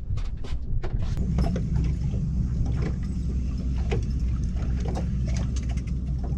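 A fishing boat's steady low rumble, with irregular knocks and clicks from gear being handled on deck.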